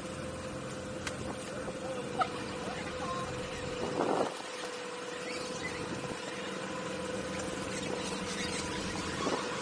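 An engine idling steadily with an even hum, under a few small knocks and one short louder burst of noise about four seconds in.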